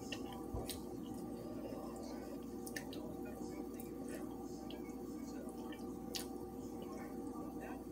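A few faint wet mouth clicks and smacks of someone chewing food, scattered over a steady low hum of room noise.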